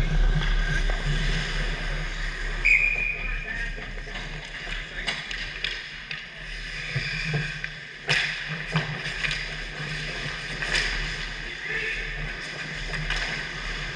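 Ice hockey play in a rink: scattered stick and puck clacks and skates on the ice over a steady hum, with a sharp knock about eight seconds in.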